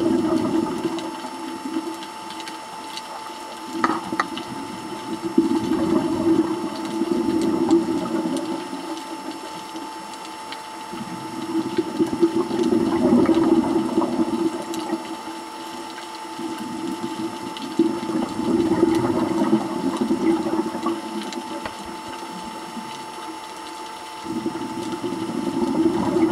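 Scuba diver breathing through a regulator underwater: gushing bursts of exhaled bubbles every five or six seconds, each lasting two to three seconds, with quieter stretches between them.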